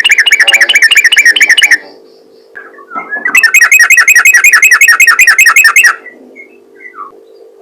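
Yellow-vented bulbul (trucukan) singing in rapid 'ropel' bursts: two long runs of fast, evenly repeated notes, about ten a second, with a pause of a second and a half between them, over a faint steady hum.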